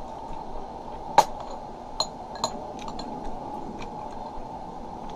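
Metal spoon clinking and scraping against a ceramic bowl while scooping food: one sharp clink about a second in, then several lighter clinks and taps.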